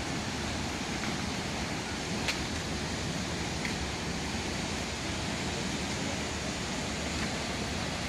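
Steady rushing roar of a waterfall and river, an even unbroken noise, with a faint click about two seconds in.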